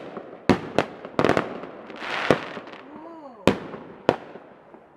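Aerial fireworks going off: a string of sharp bangs, several close together in the first second and a half and then spaced out, with a hissing crackle about two seconds in.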